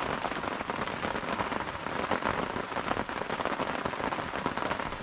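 Sudden torrential rain, a dense, steady patter of countless drops striking nearby surfaces.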